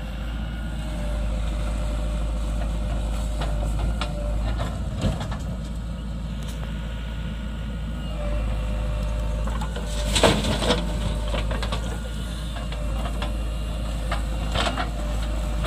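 Diesel engine of a JCB 3DX backhoe loader running under load as it digs soil, with clanks from the arm and bucket, the loudest a little past ten seconds in and another near the end.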